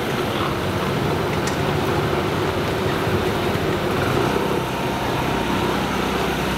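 Steady urban street noise, an even traffic-like rumble with no distinct events.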